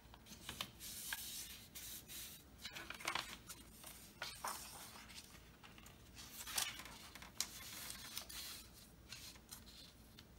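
Paper model parts being folded and handled by hand: faint, scattered rustles and crinkles of paper being creased.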